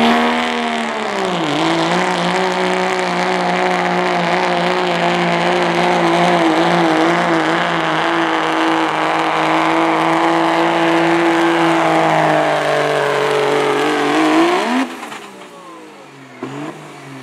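Second-generation Dodge Ram diesel pickup pulling a weight-transfer sled: the engine sags briefly as the truck launches, then holds steady high revs under heavy load. Near the end the revs flare briefly and the engine falls away as the pull ends.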